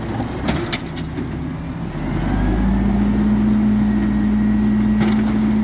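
Automated side-loader garbage truck's arm clamping a cart with a few knocks, then the truck engine revving up to a steady higher speed to drive the hydraulics as the arm lifts and tips the cart, with more knocks near the end as the cart is shaken out.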